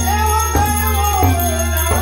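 Live Gujarati devotional song: a man sings a long held note that slowly falls, over harmonium chords, tabla strokes and the steady ringing of small hand cymbals.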